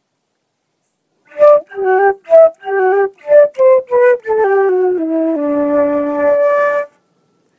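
Silver concert flute playing a phrase of short, separate notes starting about a second in, then stepping down into one long low note held for about a second and a half before stopping.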